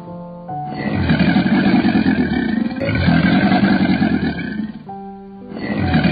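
Crocodiles growling: long, rough roars of about two seconds each, three in a row with short gaps, the last starting near the end. Background music with steady notes shows in the gaps.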